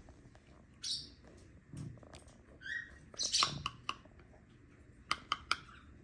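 Young peach-faced lovebird giving a few short raspy calls and a brief chirp, with three sharp clicks in quick succession near the end.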